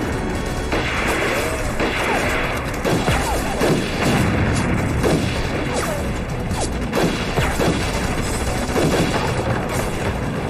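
Film battle soundtrack: dramatic background music mixed with explosions and gunfire.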